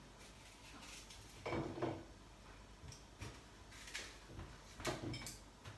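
Light kitchen clatter of a knife and dishes being handled on a counter: a few separate clinks and knocks, the loudest about one and a half seconds in and again near the end.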